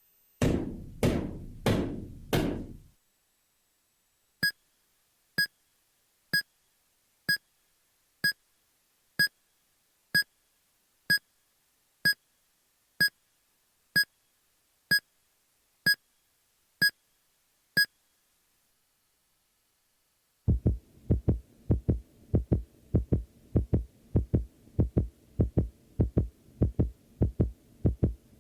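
A run of separate cartoon sound effects. First come four knocks that die away quickly. Then a sharp ticking sounds about once a second for some thirteen seconds and stops. After a short silence comes a fast run of low heartbeat-like thumping.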